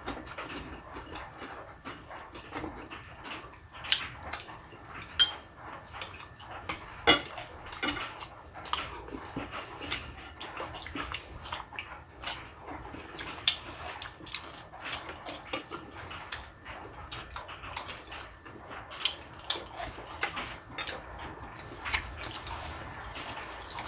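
Irregular clinks and clicks of utensils against dishes and bowls while food is handled, with a few sharper knocks, the loudest about seven seconds in.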